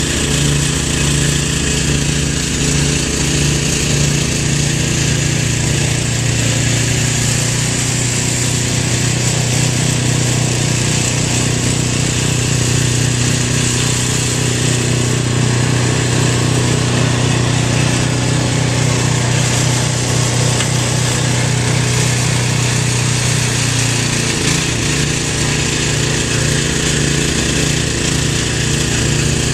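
A small engine running steadily, with a slight change in its pitch about 24 seconds in.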